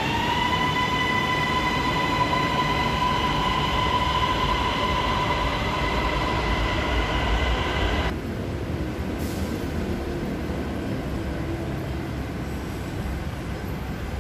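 Bangkok MRT Blue Line electric metro train at an elevated platform: a steady high-pitched whine with overtones over a low rumble, cutting off suddenly about eight seconds in and leaving a quieter steady rumble.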